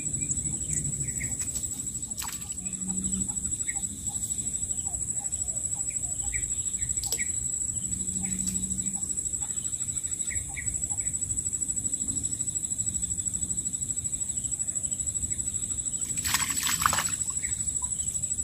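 Outdoor ambience of a grassy ditch bank: a steady high-pitched drone with scattered short bird chirps, and a brief rustle about sixteen seconds in.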